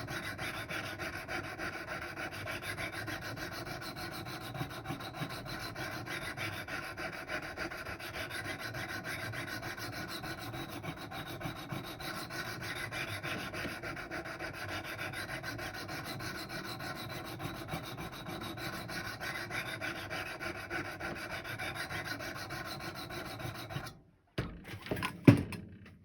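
200-grit stones of a Wicked Edge guided sharpener stroked along a Rex 45 steel knife blade: a steady rasping rub while the burr is raised on the blade's second side. The rubbing stops about 24 seconds in, followed by a few sharp knocks, the loudest near the end.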